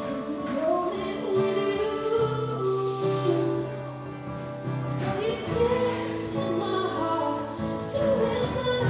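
Live band playing the instrumental break of a slow ballad: a sliding lead melody over held chords and sustained bass notes.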